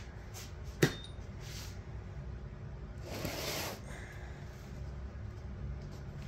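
Off-camera workshop handling noises over a low steady hum: one sharp knock about a second in, then a brief rustling scrape around three seconds in.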